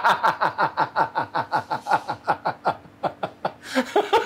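A man laughing heartily: a rapid run of 'ha-ha' pulses, about six a second, each dropping in pitch, that tails off about three and a half seconds in before a fresh burst near the end.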